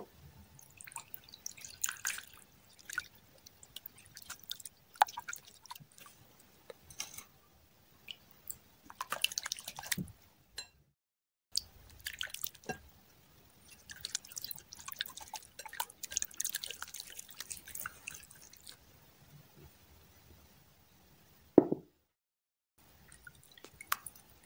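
Wet, sticky slime being squished, stirred and kneaded in a glass bowl: squelches and clusters of sticky clicking pops, in short bursts with pauses, and one louder smack near the end.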